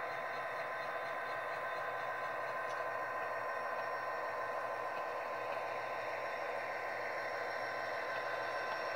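Onboard sound decoder of an HO-scale Athearn Genesis GP39X model diesel locomotive playing its diesel running sounds through the model's small speaker as it runs: a steady drone with a thin, steady whine.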